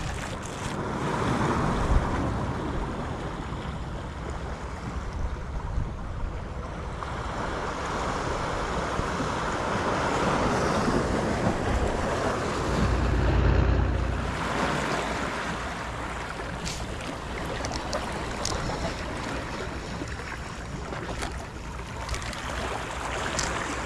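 Sea waves washing against the rocks of a breakwater, swelling and ebbing, with wind buffeting the microphone. A few short clicks come in the second half.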